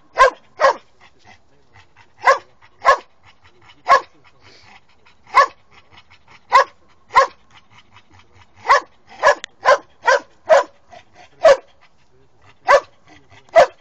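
A young Posavac hound barking again and again in sharp single barks, sometimes in quick runs of three or four. It is baying at a wild boar during training.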